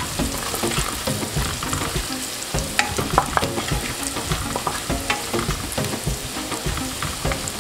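Ginger, garlic, green chillies and cumin seeds sizzling in hot mustard oil while they are stirred, with a steady frying hiss and scattered clicks and scrapes of the spoon against the pan.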